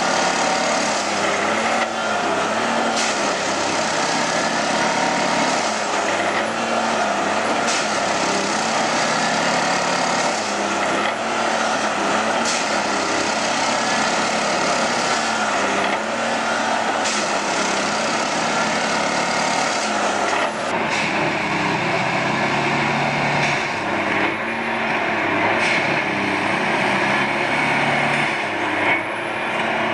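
Queensland sugar-cane train running: steady diesel locomotive engine sound with the rattle of the train and a sharp click every second or two.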